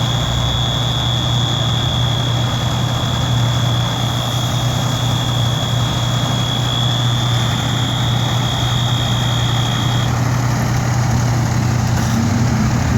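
Fire truck diesel engine idling steadily. Over it runs a steady high-pitched tone that stops abruptly about ten seconds in.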